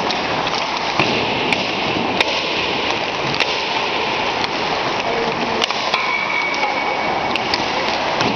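Ice hockey warm-up on an indoor rink: a steady rush of skates on the ice and rink noise, broken about once a second by sharp clacks of pucks struck by sticks and hitting the boards.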